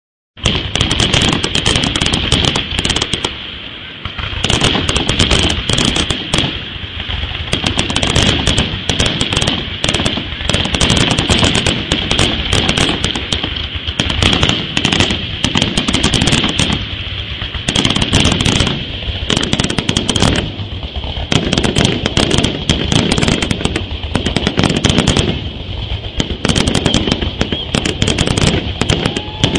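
A fireworks display going off in a rapid, nearly continuous barrage of bangs and crackles, with only brief lulls.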